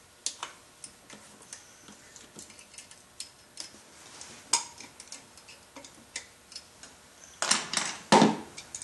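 Scattered light metallic clicks and ticks of hand tools working on the engine: pliers on the steel tie wire holding the camshafts. Near the end, a louder brief clatter of metal tools being handled.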